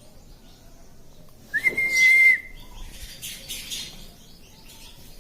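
Pet ringneck parrot giving one whistle about a third of the way in: a quick upward slide onto a held high note lasting under a second. Faint soft chirps follow.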